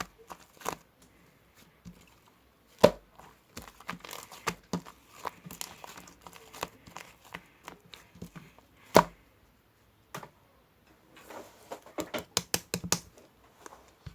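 Crinkling and rustling of some crinkly material being handled, with irregular sharp clicks; two much louder clicks land about 3 and 9 seconds in, and a quick run of clicks comes near the end.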